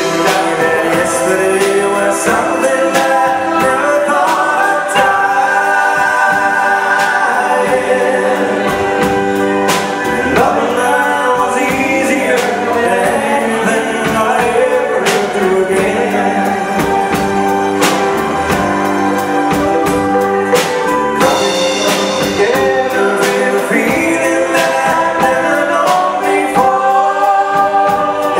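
Live band playing a song: a man singing lead into a handheld microphone over acoustic guitars, electric bass, keyboard and drums.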